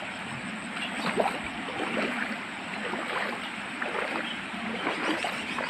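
Shallow river water gurgling and splashing over rocks: a steady rush with many small, irregular splashes.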